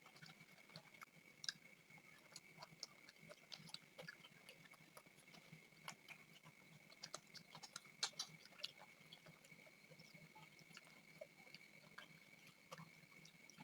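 Faint, irregular chewing and mouth clicks of people eating chicken and flatbread by hand, over a faint steady high-pitched tone.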